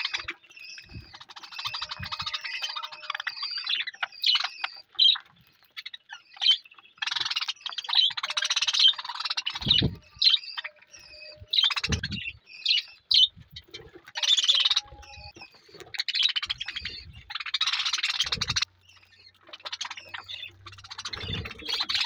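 A flock of budgerigars chattering, with rapid chirps, warbles and squawks in overlapping bursts while they feed, and a few low knocks among them.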